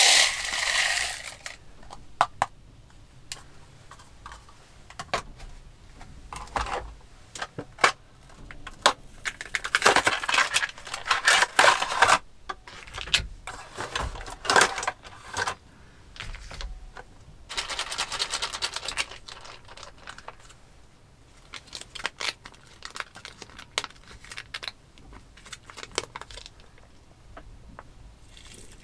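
Close-up handling sounds of food prep at a table: dry rice grains poured from a plastic tub into a paper-lined clay pot, then granules shaken from a small cardboard carton, with paper rustling and many light clicks and taps.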